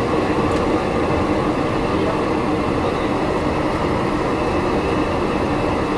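Steady flight-deck noise of a Boeing 727 in flight: an even rush of air and engine drone with a few constant hums, unchanging throughout.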